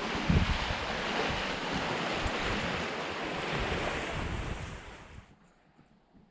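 Steady rushing of wind and waves, with gusts buffeting the microphone, cutting off suddenly about five seconds in.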